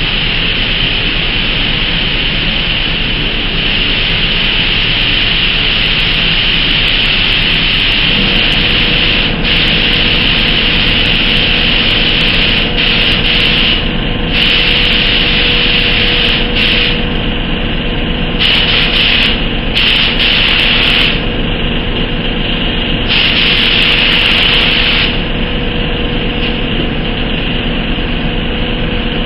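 Gravity-feed paint spray gun hissing as it sprays a test panel in repeated passes, louder in several strokes of a few seconds each, with a steady mechanical hum underneath.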